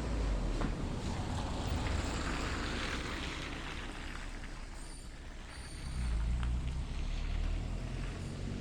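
Outdoor traffic and wind noise: a passing vehicle's hiss swells and fades over the first few seconds, then a low wind rumble on the microphone picks up about six seconds in.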